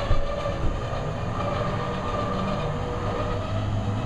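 The pickup-mounted motorcycle lift's motor running steadily as it tilts the motorcycle up onto the truck, with two sharp knocks in the first second.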